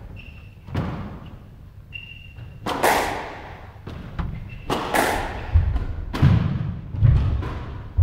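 Squash rally: the ball cracks off rackets and the court walls, about seven sharp hits, each ringing on in the court's echo and coming faster in the second half. Short high squeaks of court shoes on the wooden floor come in the first half.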